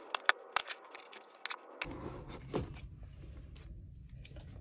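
A few sharp clicks and taps in the first two seconds, from small items being handled, then quieter handling noise.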